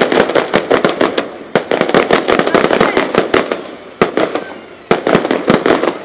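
Fireworks display going off: a dense, rapid barrage of sharp bangs and crackling reports, briefly thinning out about four seconds in before picking up again.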